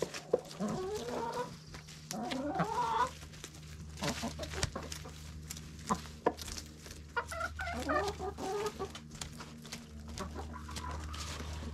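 Chickens clucking while they feed on a pile of fresh greens, in several runs of short rising calls, with a few sharp clicks and a steady low hum underneath.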